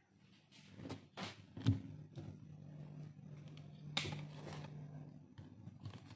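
Phone being handled and moved close to the microphone: a string of knocks and rubbing, the loudest at just under two seconds and at about four seconds, with a steady low hum for about three seconds in the middle.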